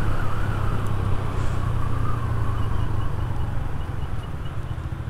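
Yamaha 125 motorcycle engine running steadily while riding, under wind noise. A faint wavering whine sits over it for the first couple of seconds.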